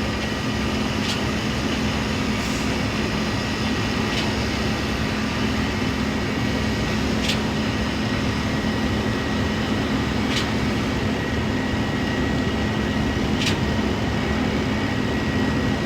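Concrete pump truck running steadily under load, its diesel engine and pump making a continuous hum, with a sharp knock about every three seconds as the pumping pistons change stroke.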